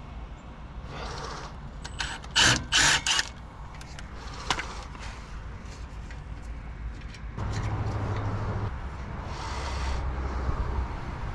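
Cordless power tool running in three short bursts about two and a half seconds in, spinning out a brake caliper bolt. Later a steady low hum for about a second.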